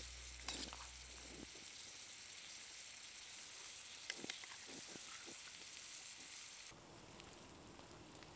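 Faint steady hiss of a pot of pasta simmering over a small campfire, with a few light clinks of a metal spoon against the pot and a tin as tomato paste is stirred in, the sharpest about half a second in. Background music fades out about a second and a half in.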